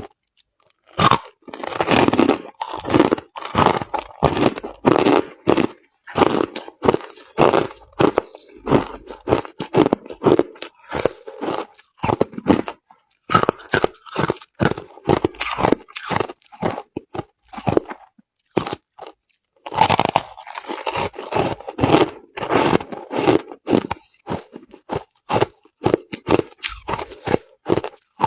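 Crushed ice being chewed close to the microphone: dense, irregular crunching in runs of bites, with short pauses between.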